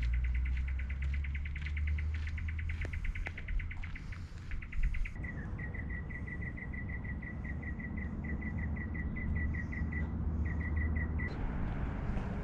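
Rapid, evenly spaced high chirps from a calling animal in the bush, about ten a second. About five seconds in they give way to a slower run of about five a second, which stops near the end. A low rumble lies underneath.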